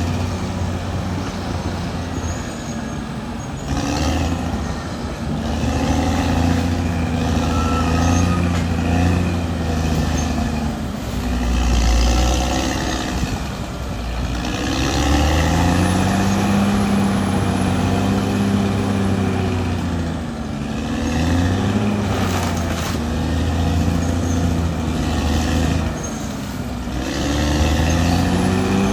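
Caterpillar D6R XL bulldozer's diesel engine working under load, its pitch dropping and climbing back several times as the load changes, with a few short clanks.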